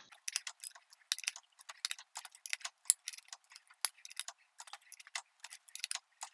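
Socket ratchet clicking in quick, irregular runs as it is swung back and forth, running lug nuts down snug on a tractor wheel.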